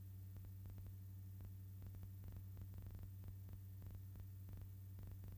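Faint steady low hum with scattered crackling clicks: the noise floor of a silent archival film transfer, with no recorded sound from the scene.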